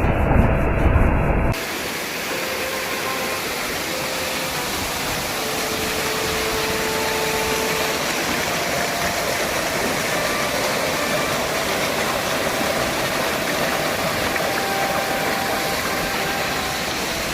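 Waterfall rushing steadily, swollen with rainy-season water. About a second and a half in, the sound cuts from a deeper, duller rumble to the full, hissing rush of the falling water.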